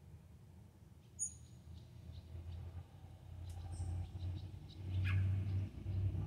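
Quiet background: a few short, high bird chirps, one sliding down in pitch about five seconds in, over a low rumble that swells in the second half.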